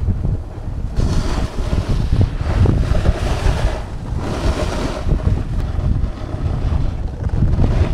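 Strong wind buffeting the camera microphone with a constant heavy rumble, joined by stretches of louder hiss about a second in and again around four seconds.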